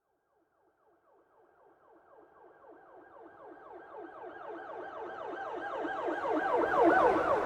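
Emergency vehicle siren in a rapid yelp, sweeping up and down several times a second. It grows steadily louder as it approaches, is loudest about seven seconds in with a low rumble from the passing vehicle, then begins to fade.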